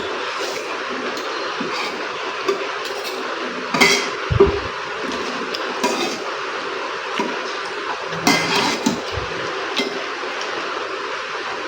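Cutlery clinking against a bowl now and then while someone eats noodles, over a steady background hiss. The loudest clinks come about four seconds in and again around eight to nine seconds.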